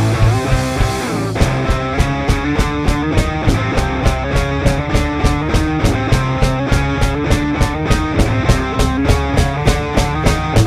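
Rock band playing an instrumental passage. An even, fast beat of about four strokes a second comes in about a second and a half in.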